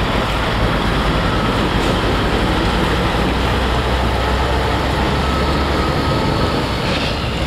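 Diesel engine of a classic long-hood semi tractor running as the truck pulls past and drives away, a steady low rumble.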